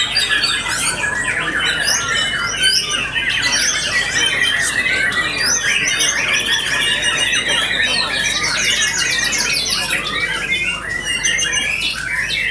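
White-rumped shamas singing at once: a dense, unbroken stream of rapid overlapping whistles, trills and chattering calls.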